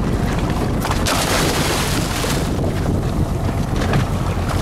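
A diver drops from a boat's side into the sea, a splash of water lasting about a second that starts about a second in. Under it runs a steady low rumble of the boat, with wind on the microphone.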